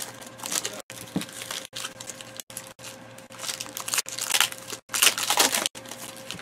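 Foil trading-card pack wrapper crinkling as it is handled and opened, with cards being shuffled by hand; the loudest crinkling comes about five seconds in.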